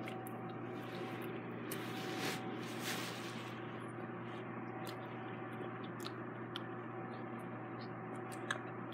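Steady low hum of room tone with a thin steady tone above it, and a few faint clicks and soft rustles.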